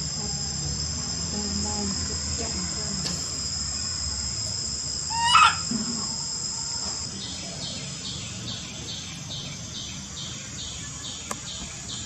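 Insects buzzing in a steady high-pitched drone; about seven seconds in the steady tone stops and an even pulsed chirping of about three a second takes over. A short high call with a rising pitch stands out about five seconds in, the loudest sound.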